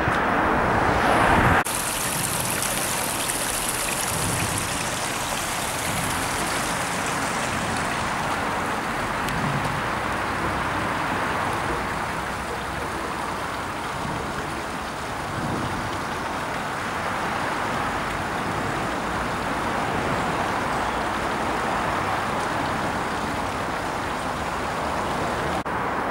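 Fast-flowing floodwater rushing, a steady even wash of noise. It starts with a louder rush of noise in the first second and a half that cuts off abruptly.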